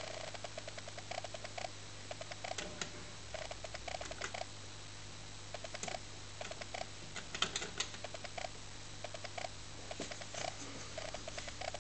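Faulty jukebox making stop-start runs of short, even, mid-pitched blips, several a second, over a steady electrical hum. A few sharper clicks come as its selection keypad is pressed.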